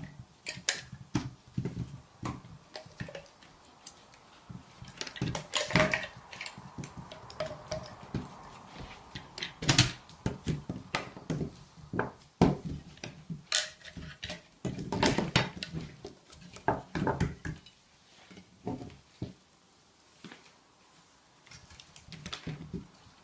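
Hard plastic legs and frame of a pet bowl stand being handled and fitted together: irregular clicks and knocks, the loudest about ten and fifteen seconds in.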